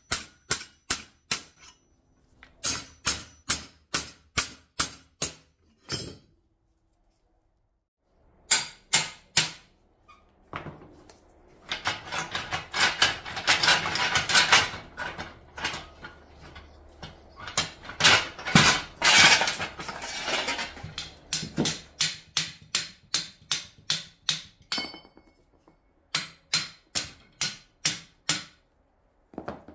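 Hammer blows on a steel punch and on the rusty steel frame of an old plow, struck in runs of sharp metallic knocks about two a second. A denser spell of rapid knocking and rattling falls in the middle.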